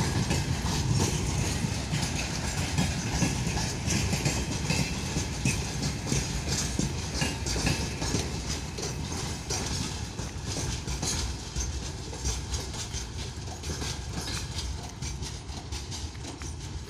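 Freight train's covered boxcars rolling past, wheels clicking over the rail joints over a low rumble, slowly fading as the train moves on.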